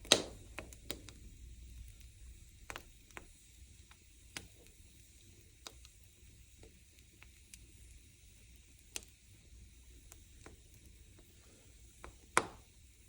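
Wood fire crackling in a fireplace or stove: a faint steady hiss with scattered small snaps, and two loud pops, one at the start and one near the end.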